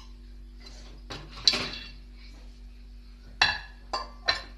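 Kitchen utensils and dishes clinking against a bowl: a knock with a short scrape about a second and a half in, then three sharp ringing clinks near the end.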